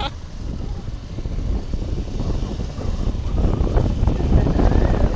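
Motorcycle running, with wind rushing over the microphone; the rumble grows louder from about two seconds in.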